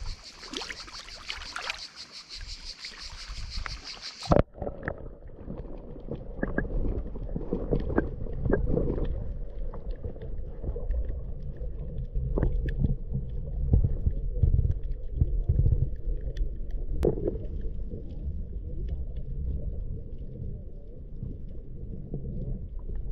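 Shallow seawater lapping over rocks. About four seconds in, a sharp knock as the camera goes under, and the sound turns to the muffled low rumble of water moving against the submerged camera, with scattered clicks.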